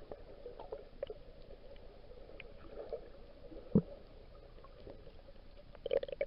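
Water lapping and gurgling against the hull of a boat drifting at rest, with small clicks and a single sharp knock a little under four seconds in.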